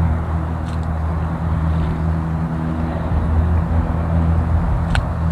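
Strong wind buffeting the microphone: a steady low rumble, with a faint click near the end.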